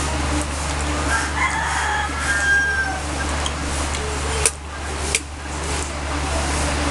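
A rooster crowing about a second in, over a steady low hum and hiss. Two sharp clicks follow a little later.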